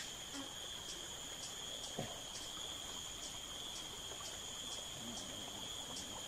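Insects calling steadily: one high, even note, with a higher note pulsing about twice a second over it.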